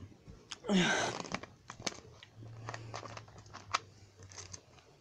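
Plastic Coca-Cola bottle crinkling and crackling in a hand, with scattered sharp clicks, after a short vocal noise about a second in.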